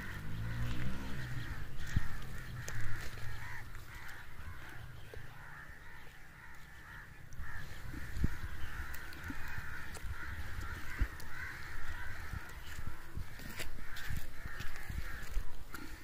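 A continuous chorus of birds calling from the trees, including crows cawing, over a low rumble with a few scattered knocks.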